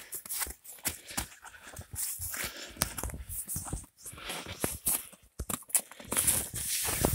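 Footsteps crunching over a thin layer of snow and loose broken brick rubble: irregular crunches and clicks, a little louder near the end.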